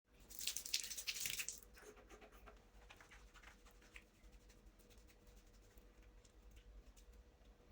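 Rustling and scraping handling noises, loudest in the first second and a half, then faint scattered clicks and taps over a faint steady hum.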